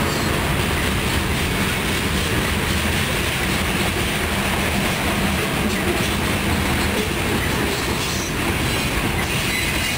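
Covered grain hopper cars of a freight train rolling past: a steady, continuous noise of steel wheels on rail.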